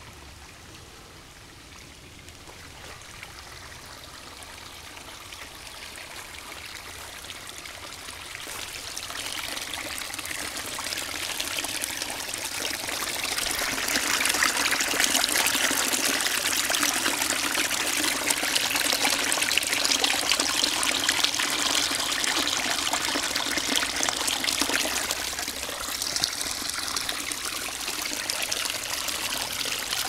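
Sewer overflow: sewage spurting out from under a manhole cover and pouring over its rim onto the ground. The rushing water starts faint, grows louder over the first dozen seconds or so, then runs steadily.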